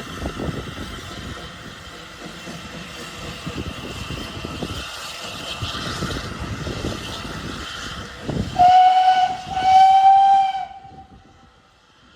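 Steam locomotive working with a steady hiss of steam, then two blasts on its steam whistle about eight and a half seconds in, the second longer and fading away.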